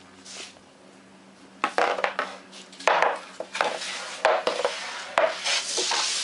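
Hockey stick blade and rubber puck on a melamine shooting board: about five sharp clacks, each trailed by a scraping slide, the last slide the longest. The board has just been sprayed with Pledge.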